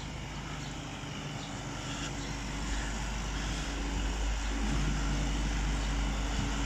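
Diesel engine running steadily with a low hum, growing gradually louder as it is approached.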